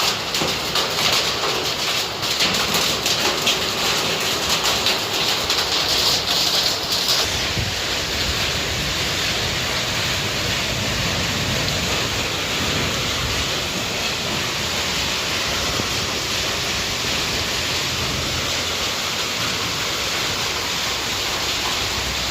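Heavy rain with hail: a dense patter of sharp hits over the rain for about the first seven seconds, then it changes suddenly to a steady rain hiss.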